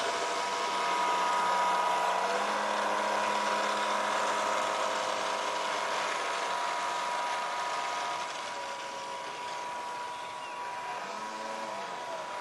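Graupner Speed 600 brushed electric motor of a radio-controlled model Cub whining steadily as it turns an 8x6 propeller on its takeoff run, stepping up in pitch about two seconds in. The whine fades as the plane moves away, and its pitch wavers briefly near the end.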